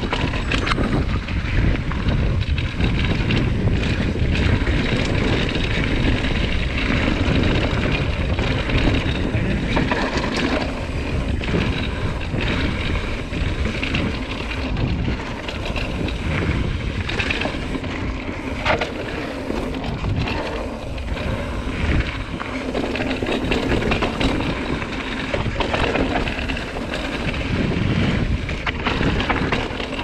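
Wind buffeting the camera microphone while a mountain bike rolls down a dirt and gravel trail, its tyres running over the surface, with scattered clacks and rattles from the bike over bumps.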